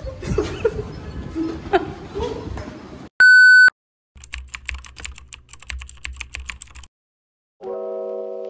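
Voices and noise cut off, then a loud half-second test-pattern beep, a single steady tone, sounds with the TV colour bars. It is followed by about three seconds of crackling, clicking static over a low hum, a moment of silence, and then soft chime-like intro chords starting near the end.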